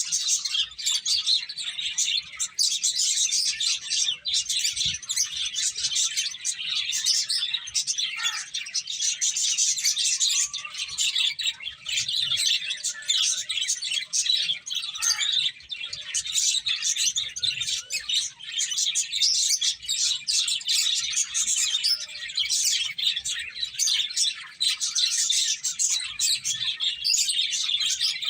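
A group of pet finches chirping without a break, many short, high calls overlapping.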